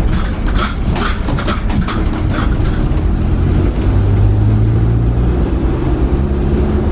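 A motor vehicle's engine running with a steady low rumble, with clattering and rattling over the first couple of seconds.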